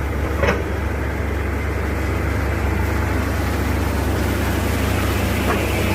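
Heavy vehicle's diesel engine running steadily with a low, even drone. Two faint clicks sound, one about half a second in and one near the end.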